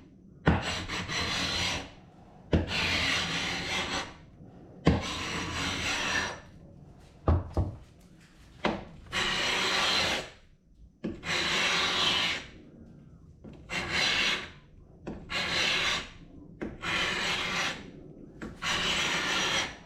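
Carbide hand scraper dragged over the wood of an antique dresser, peeling off a very old finish that comes away easily. About ten raspy strokes of a second or so each, some starting with a sharp knock as the blade bites in, with short pauses between.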